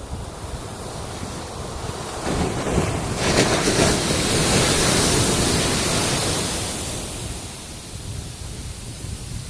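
A wave breaking on the beach: the surf noise swells about two seconds in, is loudest for a few seconds, then washes out and fades, with wind rumbling on the microphone underneath.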